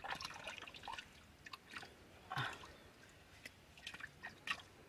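Faint, irregular wet squelching and sloshing of mud and water as a hand gropes around at the bottom of a deep, muddy hole.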